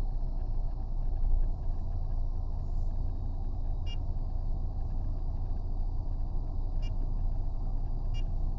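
Steady low rumble of a vehicle heard from inside its cabin, with three short clicks spread over the last half.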